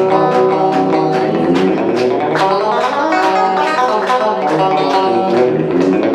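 Live bluegrass-style music on plucked string instruments: a steady run of picked notes, about four a second, over held chords.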